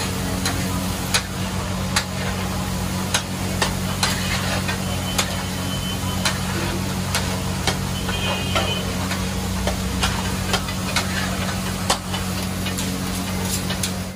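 Metal spatulas scraping and clacking on a large flat iron griddle as a burger-patty mixture is chopped and mixed, with sharp clacks about every half second to a second. A faint sizzle and a steady low hum run underneath.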